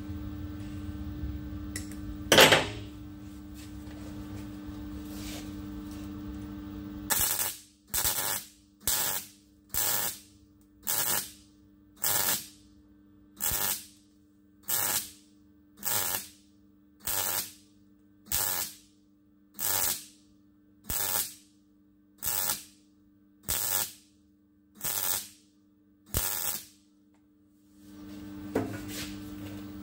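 MIG welder striking a series of about sixteen short arcs onto a steel roller, each a brief crackling burst about a second and a quarter apart, building weld metal back onto a rust-eaten surface. A steady hum runs underneath, and one sharp, loud knock comes about two seconds in.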